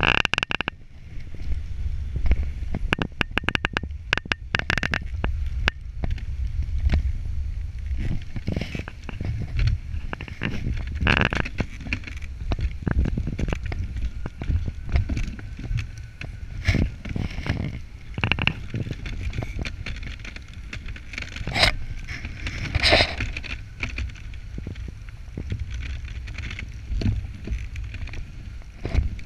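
Wooden dog sled pulled by huskies running over a snowy trail: a steady low rumble of the runners on snow, with frequent knocks and rattles from the sled frame.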